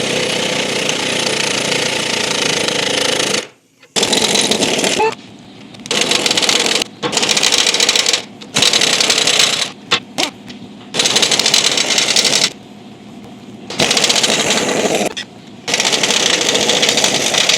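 Impact wrench hammering in repeated bursts, the first about three seconds long, then shorter ones with brief pauses between them, as it breaks loose and runs off heated leaf-spring U-bolt nuts on a rear axle.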